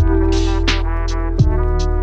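Background music with a steady beat: a deep kick drum about every second and a half and short ticks between, over held chords.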